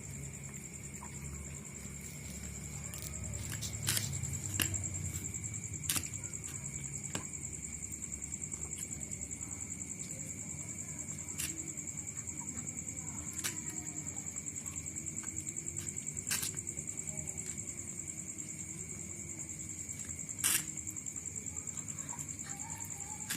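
Insects droning steadily in two high, finely pulsing tones, with a handful of sharp clicks scattered through.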